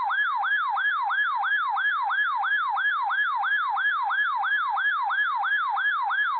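Electronic weather-radio alert siren: a whooping tone that falls in pitch and snaps back up, repeating about three times a second at a steady loudness. It marks an incoming NOAA Weather Radio broadcast, here the required weekly test.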